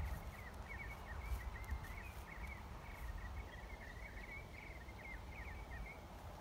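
A small bird twittering in a quick run of high chirps, over a steady low rumble.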